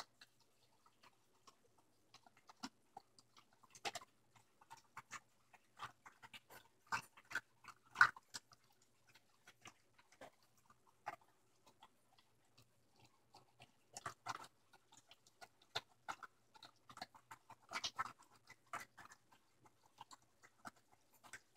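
Dog eating dry kibble from a plastic slow-feed bowl: irregular crunches and clicks of kibble and teeth against the plastic ridges, loudest about eight seconds in.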